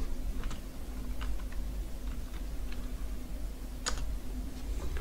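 Computer keyboard keystrokes, typing a short word: a few scattered, irregular key clicks, with one louder press about four seconds in, over a faint low hum.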